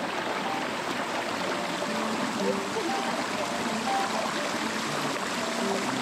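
Mountain stream rushing steadily as it spills over a small cascade of rock ledges. Faint background music with soft single notes comes in about two seconds in.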